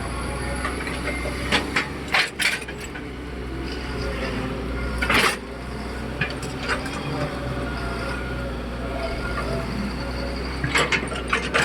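Heavy earthmoving machinery's diesel engine running steadily, with scattered metallic clanks and knocks, the loudest about five seconds in and several close together near the end.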